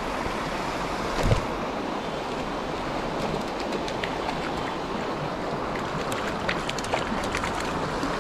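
Steady rush of shallow creek water running over rocks, with a thump about a second in and small sharp splashes from a hooked trout thrashing at the surface in the second half.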